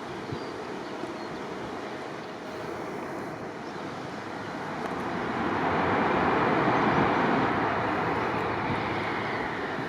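Airbus A319's CFM56 jet engines as the airliner passes while landing: a broad jet noise that swells to a peak about six to seven seconds in, then fades, with a faint falling whine near the end.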